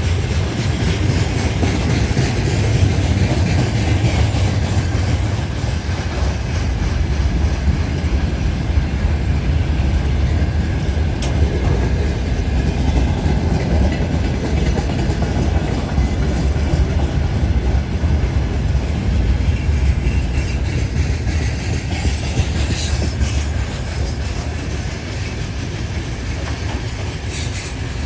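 2TE10M two-section diesel locomotive pulling into a station, its 10D100 two-stroke diesel engines running with a steady low rumble and wheels clacking over the rail joints, with a brief squeal now and then. The sound eases off slightly near the end.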